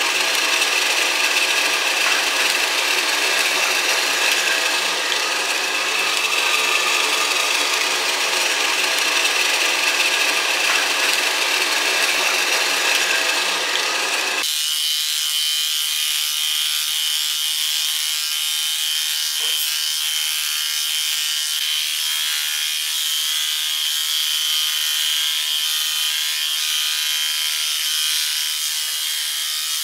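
Slicker brush raking through a dog's matted curly coat, a steady scratchy rubbing, over a continuous machine hiss with a thin steady whine. The sound changes abruptly about halfway through.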